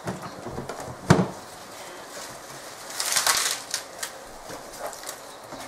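Kitchen prep handling sounds: a sharp knock on the counter about a second in, then about a second of leafy rustling as Swiss chard is handled, with a few light clicks.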